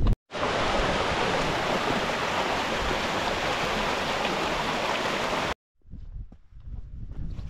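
Steady rush of water, cutting in sharply just after the start and stopping abruptly about five and a half seconds in. After that, quieter wind buffets the microphone.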